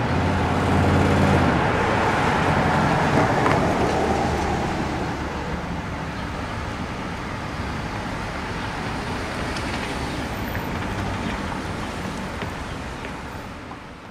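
Road traffic noise: a vehicle's engine passes close in the first couple of seconds, then a steady wash of passing traffic that fades out near the end.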